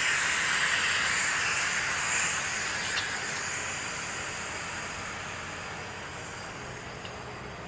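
Compressed air hissing from an air chuck as a tractor tire is inflated, the tire looking a little low. A steady hiss that gradually fades.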